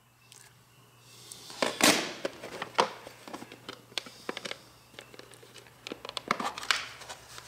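Digital calipers and their hard plastic cases being handled on a workbench: a run of small clicks, taps and rustles, with a louder scraping rush about two seconds in.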